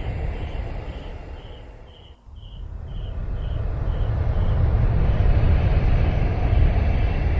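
Steady low rumbling outdoor noise that fades down about two seconds in and swells back up, with a faint high chirp repeating about twice a second around the quiet dip.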